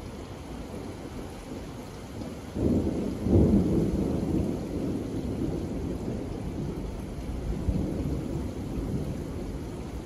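Steady rain falling on a wooden deck and lawn. About two and a half seconds in, a low rumble of thunder starts suddenly, peaks a second later and slowly fades.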